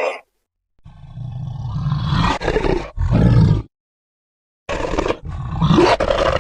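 Alien spider creature sound effect: made-up monster roars with a deep low rumble. It comes in two pairs of bursts, the first starting about a second in and the second just past halfway, each pair cut off into dead silence.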